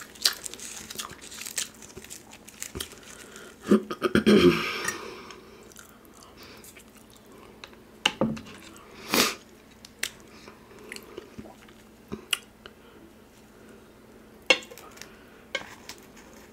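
A person chewing and biting food close to the microphone, with scattered crunches and mouth clicks; the loudest is a longer crunching burst about four seconds in.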